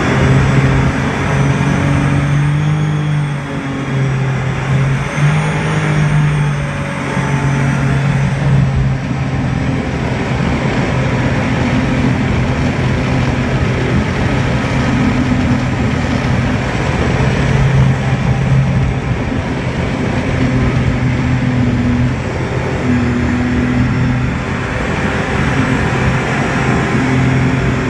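Jet boat's 230 hp engine running steadily at speed, its note rising and falling slightly now and then, with wind and water rushing past the hull.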